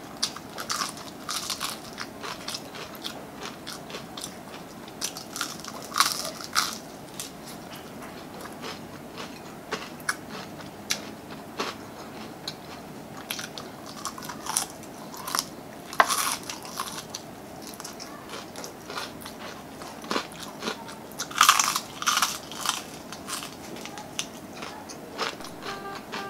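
Close-miked biting and chewing of crispy fried chicken: the battered skin crunches in irregular bursts, with a few louder bites spread through.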